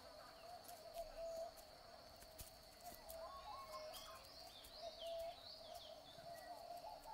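Faint bush ambience: a steady high insect whine with birds calling in short warbling and chirping notes, busiest around the middle.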